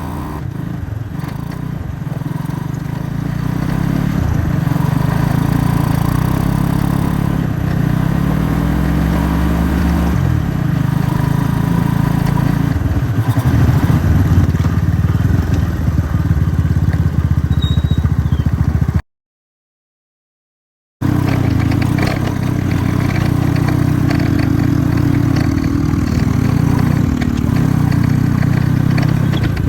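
Honda Cub's small single-cylinder four-stroke engine running on the move, its note shifting up and down with speed. It cuts to silence for about two seconds roughly two-thirds of the way through, then resumes.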